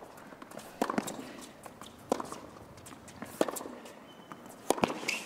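Tennis rally: the ball struck by rackets in sharp pops about every 1.3 seconds, back and forth between the players, with two quicker knocks close together near the end.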